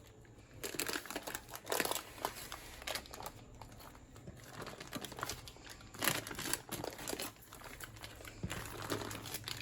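Baking paper crinkling in irregular rustles as it is peeled away from a sponge cake while the cake is rolled up.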